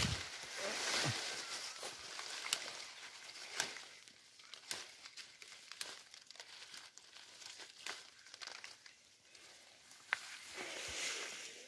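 Leaves and twigs of a shrub rustling, crackling and snapping as someone picks from it by hand: a dense rustle at first, then scattered sharp snaps.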